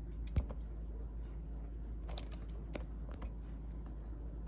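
A few light clicks and rustling from a PowerBook G3 laptop being handled and its lid opened, the sharpest click about half a second in, over a low steady hum.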